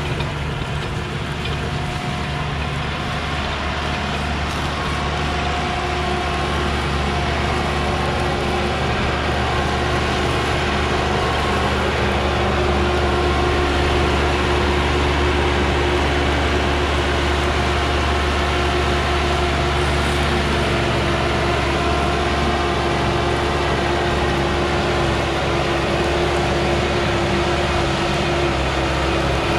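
Başak 2075 Plus tractor's diesel engine running steadily under load while it pulls and powers a working small square baler.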